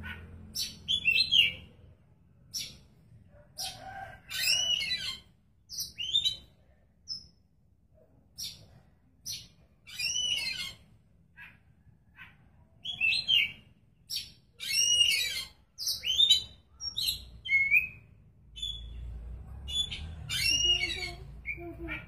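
Oriental magpie-robin (kacer) singing in full voice: short, varied phrases of clear whistles and harsher rasping notes, one after another every second or two with brief pauses between.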